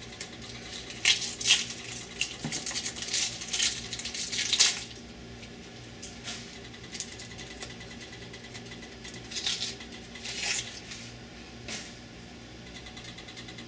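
Dry, papery onion skin crackling and tearing as it is peeled off by hand: a quick string of crinkles for the first few seconds, then a few scattered ones.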